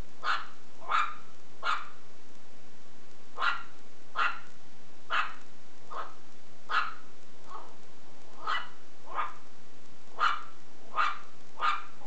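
Shih Tzu puppy barking in short, high yaps, roughly one a second, about fourteen in all, with a brief pause after the first three.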